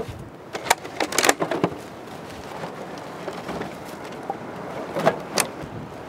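Rubbish clattering and rustling as it is handled and packed into a woven sack. There is a cluster of sharp knocks about a second in and two more near the end, over a steady hiss.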